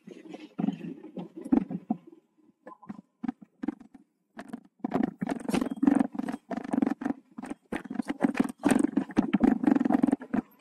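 Mountain bike clattering and rattling as it rolls over a rough, rocky dirt trail: irregular runs of sharp clicks and knocks over a low rumble, sparse at first and near-continuous in the second half.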